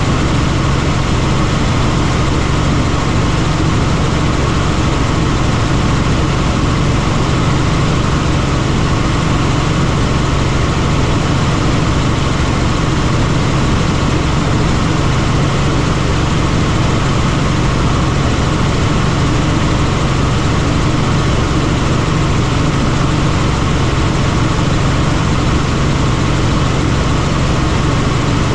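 Helicopter in flight: a loud, steady drone of rotor and engine that holds an even pitch throughout.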